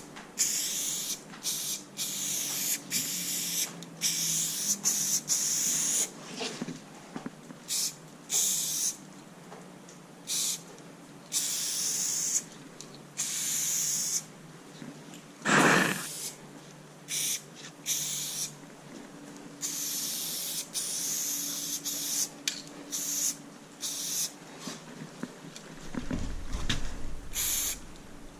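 Montana aerosol spray paint can spraying in repeated bursts of hiss, some short and some held for a second or two. There is one short, loud knock about halfway through.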